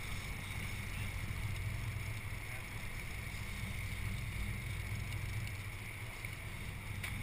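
Fishing boat's engine running with a steady low drone under an even hiss of wind and water as the boat moves along while trolling.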